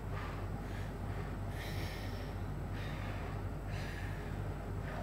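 A boy breathing hard in and out through his mouth, a few noisy, hissing breaths about a second apart, to ease a mouth burning from a hot chili pepper.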